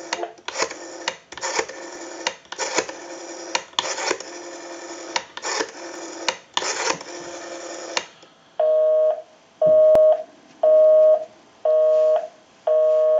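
Western Electric 500 telephone's rotary dial being turned and spinning back, its dial pulses clicking over the line amplifier. About eight and a half seconds in, a busy signal starts: a steady tone switching on and off about once a second, because the number dialed is busy.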